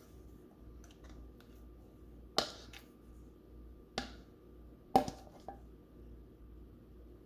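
A few sharp clicks and knocks from a stainless steel mixing bowl and silicone spatula as cake batter is poured and scraped into a springform pan, the loudest about five seconds in, over a faint steady hum.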